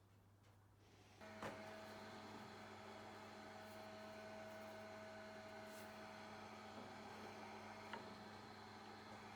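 A faint electric machine switches on about a second in and runs steadily with a hum made of a few fixed tones, over a low mains hum; a click comes just after it starts and another near the end.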